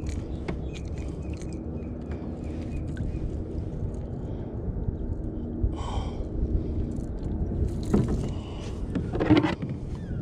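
Handling noise in a plastic fishing kayak: a steady low rumble with scattered small clicks and knocks as gear is moved about on the deck, and a louder scuffle near the end.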